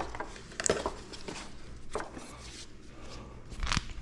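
Old wiring harness being pulled out of a motorcycle frame by hand: wires rustling and scraping, with a few sharp clicks and knocks of plastic connectors and parts, the loudest about a second in and near the end.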